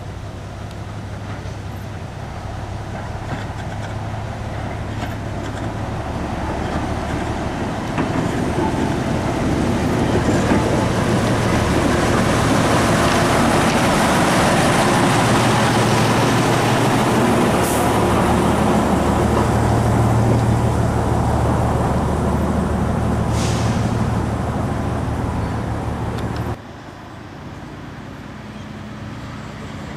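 Andrew Barclay 0-4-0 diesel shunter's engine running steadily as it moves two goods wagons slowly past at close range, growing louder as it draws near. Two short sharp clicks come in the second half, and the sound cuts off abruptly near the end, leaving quieter background.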